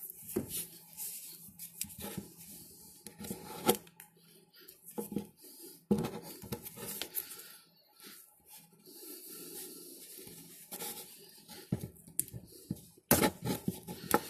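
Black electrical tape being pulled off the roll and wound around soldered wire joints: irregular peeling crackles and rustling of tape and wire, with a cluster of sharp snaps near the end.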